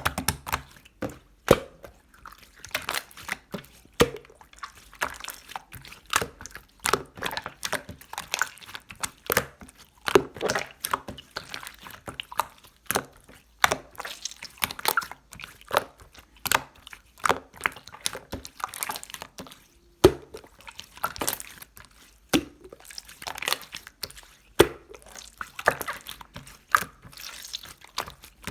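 Slime being worked by hand: a steady run of short, wet, sticky clicks and squelches, several a second, as it is pressed, stretched and folded.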